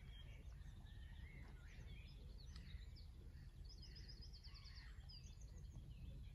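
Faint birdsong: several short chirping calls and a quick trill about halfway through, over a low steady rumble.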